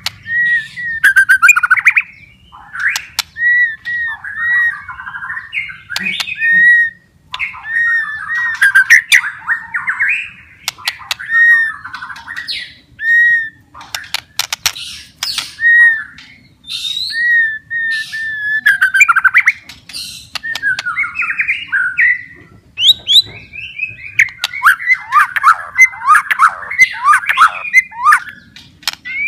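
White-rumped shama (murai batu) singing in phrases separated by short pauses: clear whistled notes and fast, varied warbling, with sharp clicks among them. A long, busy run of song comes near the end.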